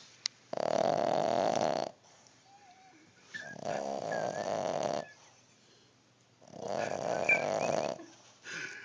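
Boston terrier snoring in its sleep: three long snores, each about a second and a half, coming roughly every three seconds, with another starting right at the end.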